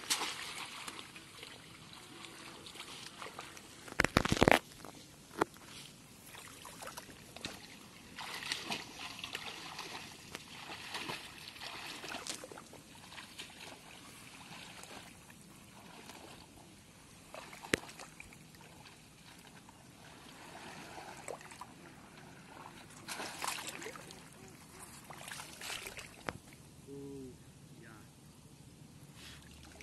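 Footsteps wading through shallow water and thick weeds, with irregular sloshing and splashing. A couple of loud knocks about four seconds in.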